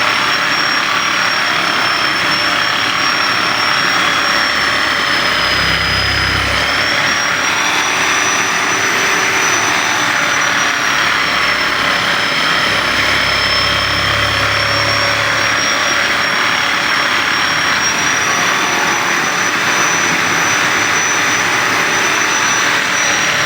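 Steady whir of a small electric motor with a high whine. The whine dips a little in pitch about six seconds in and again around twelve to fifteen seconds, while a low hum swells.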